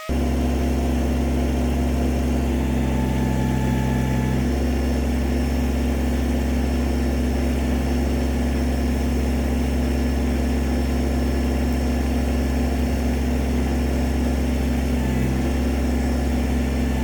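Kubota BX23 compact tractor's three-cylinder diesel engine running steadily, its note shifting slightly about four seconds in and again near the end.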